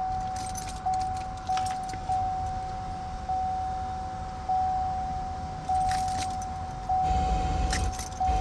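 A vehicle warning chime from a 2015 Chevrolet Suburban dinging steadily about once every second or so, a single clear tone each time. The chime still sounds even though the truck will not crank or start. A few clicks and some handling noise come in near the end.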